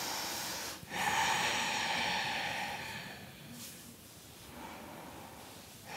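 A woman's slow, deep breathing, heard close up: a short breath at the start, a longer one from about a second in that fades out over two to three seconds, then a quiet stretch before the next breath.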